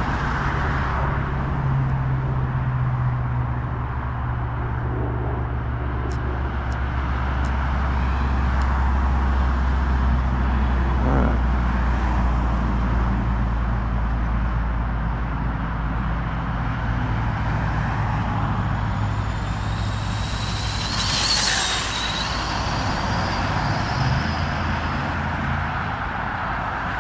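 Steady low drone of highway traffic. About twenty seconds in, a high-pitched whine rises and then falls in pitch as a stretched Arrma Typhon RC car passes at speed on its top-speed run.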